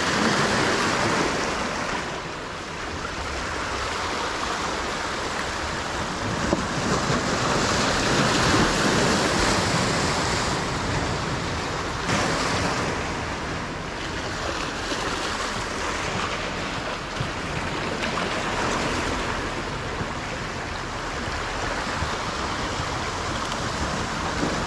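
Waves washing against a rocky shore, a steady rush that swells and eases, with some wind.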